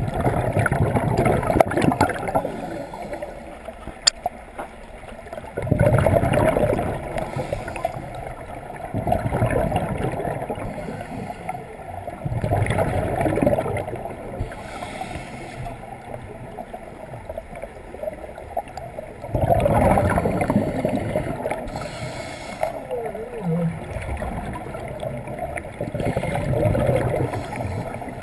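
Scuba diver breathing through a regulator, heard underwater: a gurgling burst of exhaust bubbles every few seconds, about six in all, with a short hiss of inhalation between some of them.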